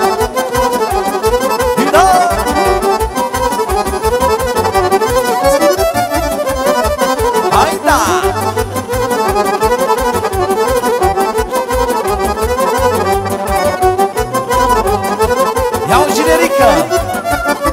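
Instrumental break of Romanian party music: an accordion plays a fast, ornamented melody over a steady beat and bass.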